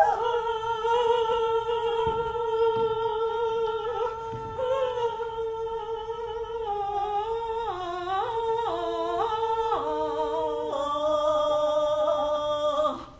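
A woman humming a slow tune in long held notes: one note held for about six seconds, then moving down and up in steps and settling on a lower note near the end, where it stops.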